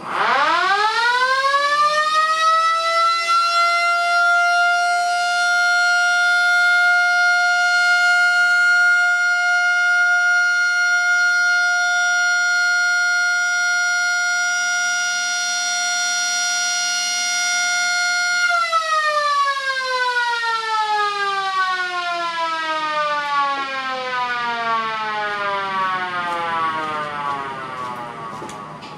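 Old GEC air raid siren sounding: its pitch climbs quickly to one steady note, holds for about eighteen seconds, then falls slowly as the siren winds down.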